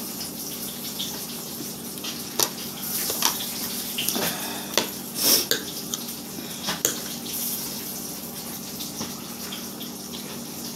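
Eating sounds as hands pull apart and pick at a sauce-covered ham hock: scattered short wet smacks and clicks. Under them runs a steady hiss with a low hum.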